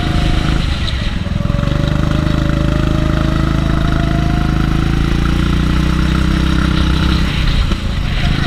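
Go-kart engine running hard close to the microphone, its pitch climbing steadily along a straight. It dips briefly about a second in and again near the end, where the kart goes through corners.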